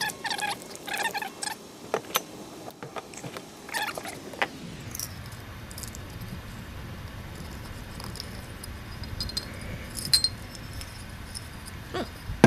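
Small metal parts clicking and clinking as an LED pot light is handled and taken apart. There is a quick run of clinks at first, a few more about two and four seconds in, and scattered ticks later.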